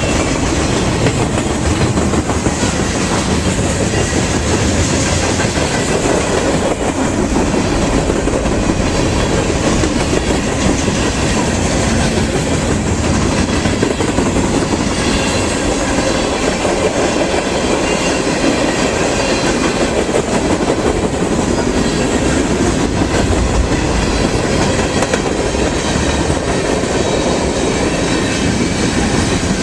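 Freight train rolling past, its steel wheels clattering steadily over the rails.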